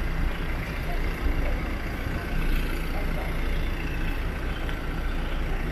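Minibus engine idling close by, a steady low rumble.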